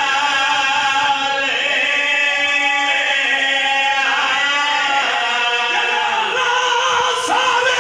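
A man's solo sung recitation (a zakir's chanted elegy) amplified through a microphone, with long held notes that bend in pitch.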